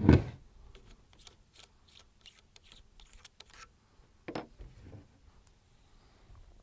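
A loud thump right at the start, then a run of light clicks and a sharper clack about four seconds in, from handling a scoped 6.5 Grendel AR rifle on its bipod on a plastic folding table.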